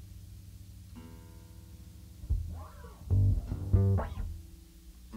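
An electric bass and an acoustic guitar being tuned between songs: single notes plucked and left ringing, some sliding in pitch as the tuning pegs are turned. The loudest bass notes come about three to four seconds in.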